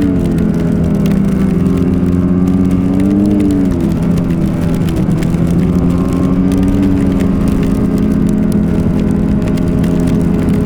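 Ski-Doo snowmobile engine running steadily at trail speed. Its pitch dips briefly about four seconds in, then holds steady.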